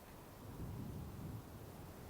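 Wind blowing through trees, a steady rushing with a deeper gust swelling about half a second in and easing off after a second or so.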